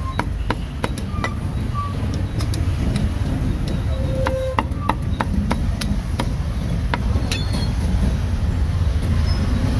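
Cleaver chopping roast meat on a chopping block: a run of sharp, irregular knocks, several a second at times, over the steady low rumble of street traffic.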